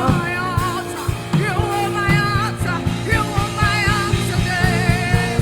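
A live church band playing a slow worship song with keyboard chords, drums and guitar, between sung lines.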